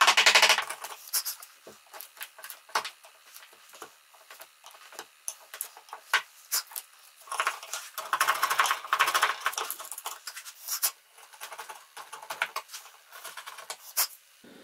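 Steel hand chisel paring and scraping out a butterfly-key mortise in a wooden tabletop: short scratchy scrapes with small ticks and taps of the blade against the wood, busiest about halfway through. A louder rasping sound cuts off within the first second.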